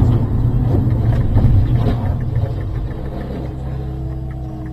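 Car engine and road noise heard from inside a moving car: a heavy low rumble that eases off over the few seconds, with a steady engine hum coming through more clearly in the second half.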